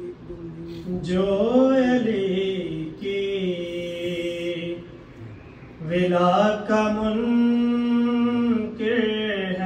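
A man chanting a religious recitation without accompaniment, in two long melodic phrases that hold and bend the notes.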